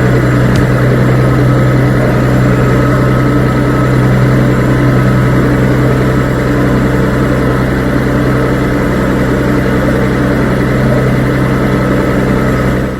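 Farm machine engine running steadily at a constant speed, with a faint steady whine above the engine note; it cuts off abruptly near the end.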